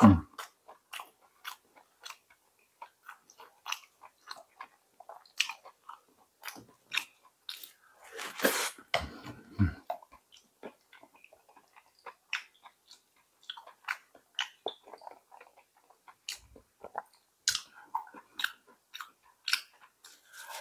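A person chewing close to the microphone, a mouthful wrapped in roasted seaweed, with many irregular little clicks and crunches. A louder rustle and low thump come about nine seconds in.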